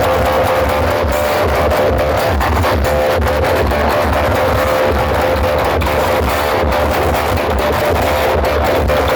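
Loud music with electric guitar over a heavy pulsing bass, blasted through large sound-system rigs, dense and harsh throughout.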